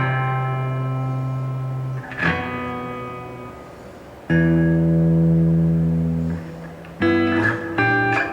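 Gibson Les Paul electric guitar played through an Electro-Harmonix Oceans 11 reverb pedal and a Blues Cube amp. Three chords are struck and left to ring out and fade with reverb, then two shorter chords come near the end.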